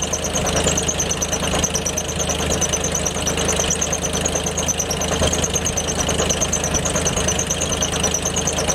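Farmall H tractor's four-cylinder engine running steadily, driving a belt-driven dike pump, with a fast, even high ticking several times a second over the engine's steady note.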